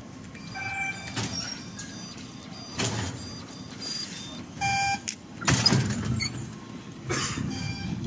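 Subway fare gates in use: two short electronic beeps, and the gate doors opening and shutting with several sharp thuds as riders pass through.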